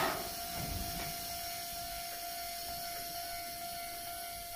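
Iyotetsu electric train standing at a platform, its equipment giving a steady whine over an even hiss of air, with a brief louder burst right at the start.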